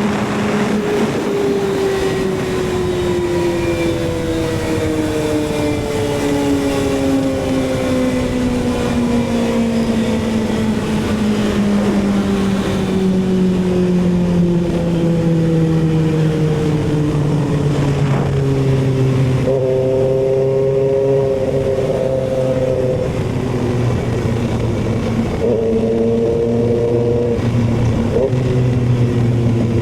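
Kawasaki ZX6R inline-four engine under way, its revs falling slowly and steadily for about fifteen seconds as the bike slows, then running low with two short rises in revs in the second half.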